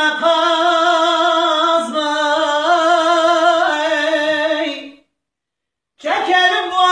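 A man singing a Turkish folk song unaccompanied, holding long, wavering, ornamented notes high in his range. About five seconds in, the sound cuts out completely for about a second, then the singing resumes.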